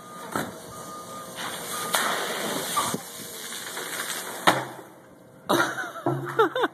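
A five-gallon plastic water jug, blown skyward by dry ice, comes down with a single sharp thud about four and a half seconds in, after a few seconds of steady hissing noise. Near the end comes a quick run of repeated chirps that fall in pitch.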